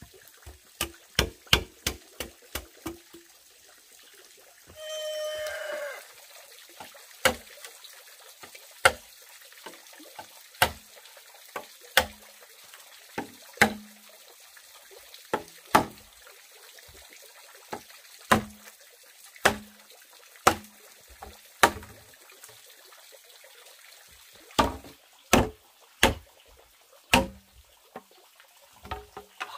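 Repeated sharp chopping strikes, quick for the first few seconds, then about one every second or two, with a quicker run near the end. About five seconds in comes a single pitched bird call lasting about a second.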